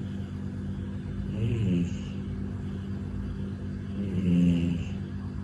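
A pet snoring, with a loud pitched snore about every three seconds (twice) over a steady low hum.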